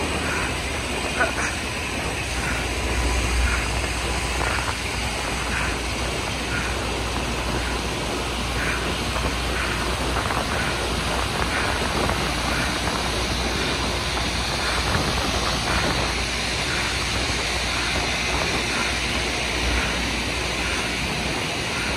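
Loram rail grinder train passing close by with its grinding stones working the rails: a steady grinding hiss over a low rumble, with faint regular clicks.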